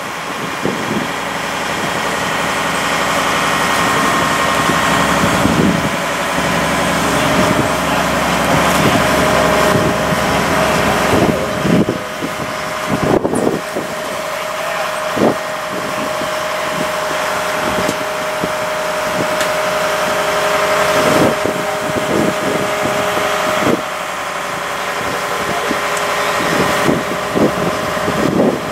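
An engine running steadily, with a steady whine joining about a quarter of the way in and scattered knocks throughout.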